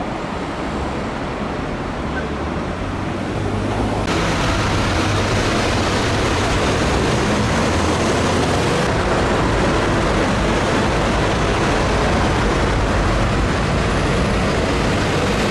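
Fire engine engines running steadily, a constant rumble with hiss over it, which grows louder about four seconds in.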